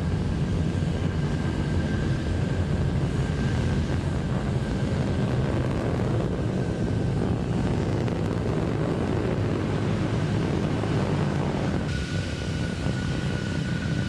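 Relativity Space Terran 1 first stage climbing under the thrust of its nine Aeon 1 methane-oxygen engines: a steady, dense rocket-engine rumble, heaviest in the low end, with no let-up. The upper part of the noise thins slightly near the end.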